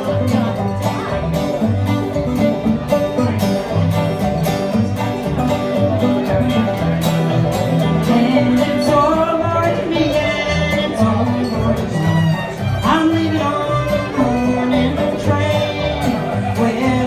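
Acoustic string band of fiddle, banjo, acoustic guitar and upright bass playing a tune together over a steady, even beat.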